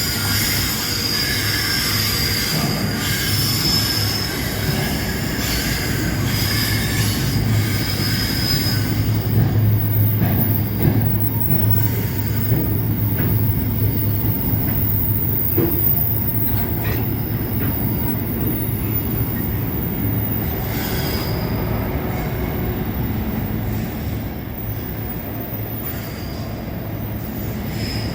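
Freight train rolling past, its steel wheels squealing on the rails over a steady rumble. The high-pitched squeal is strongest for the first third, fades, and returns briefly twice near the end.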